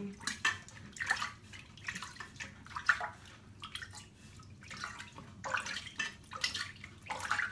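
Water being scooped out of a toilet tank and tipped out in irregular splashes and drips, lowering the tank water so the flapper seat can be dried and sealed.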